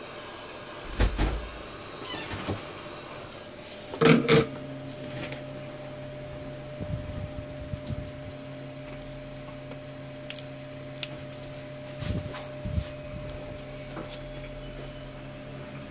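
Steady hiss of a hot-air rework station's blower running, with scattered clicks and knocks as the phone and a prying pick are handled. The loudest knock comes about four seconds in, and a low hum sets in just after it.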